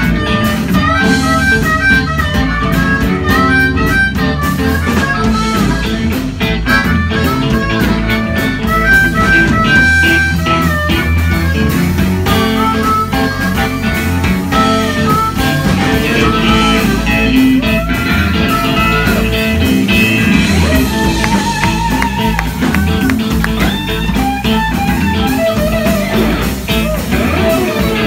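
Live blues band playing: a harmonica played into a cupped handheld microphone, its notes bending, over electric guitars and a drum kit.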